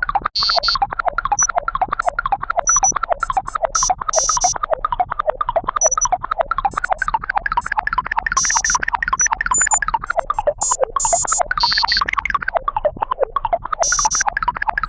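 A rapid, unbroken stream of short electronic synth blips, many per second, jumping about in pitch, with sharp hissy bursts scattered among them. There is a brief gap just after the start.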